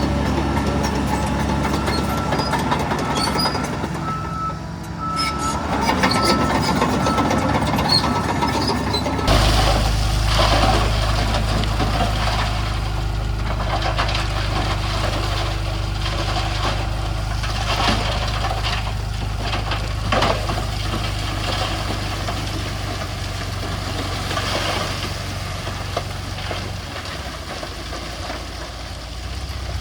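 Heavy diesel earthmoving machinery running, with a reversing alarm beeping in the first several seconds. About nine seconds in the sound changes abruptly to a deeper, heavier engine drone with scattered knocks and clatter of stone.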